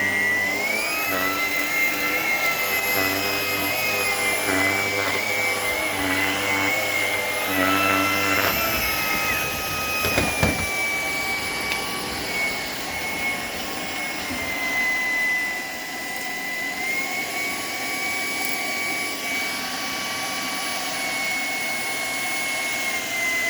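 Shark PowerDetect vacuum cleaner running on a kitchen floor, its motor whine stepping up and down in pitch a few times. A brief clatter comes about ten seconds in.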